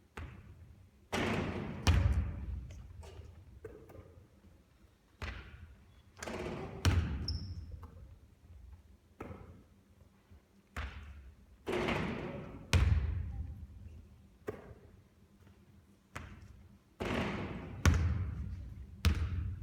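A basketball bouncing on a court during shooting practice: heavy thuds in small clusters every few seconds, each dying away with an echoing tail.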